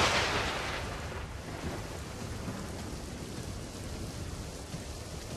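A thunderclap fading into a rumble over the first second or so, followed by steady rain.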